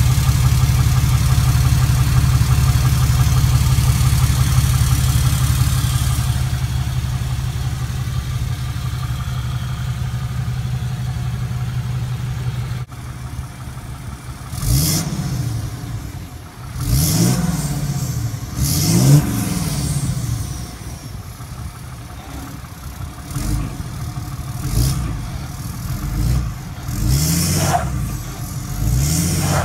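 A 2012 Ram 2500's 6.7 Cummins inline-six turbo diesel, with a 4-inch exhaust pipe and muffler on the stock tune, running steadily heard from beneath the truck. After a cut about 13 seconds in, it is blipped through about seven short revs that rise and fall back.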